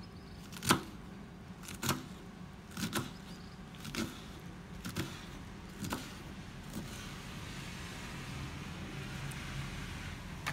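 Kitchen knife cutting through rolled spinach leaves onto a bamboo cutting board: about seven knocks, roughly one a second, over a steady low hum.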